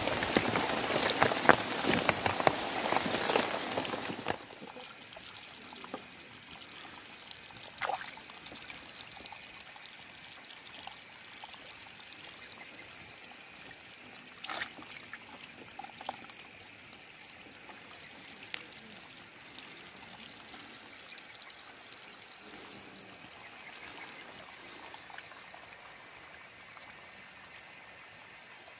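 Live fish splashing and water sloshing in plastic buckets, loud and busy for the first four seconds or so, then dropping suddenly to a few faint single splashes as hands reach into the water.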